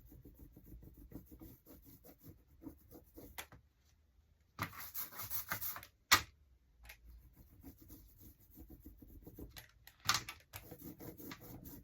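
Rubber ink roller being rolled back and forth through tacky water-based ink over a lino block, a sticky crackling rub in repeated strokes, with a sharp knock about six seconds in.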